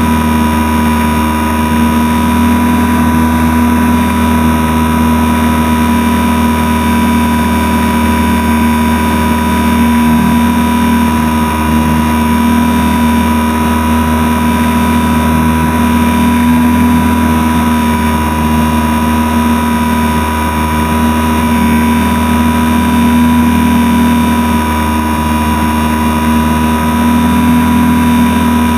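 HobbyZone Super Cub RC plane's electric motor and propeller running steadily in cruising flight, heard close up from on board the airframe: an even hum with a thin high whine, holding the same pitch.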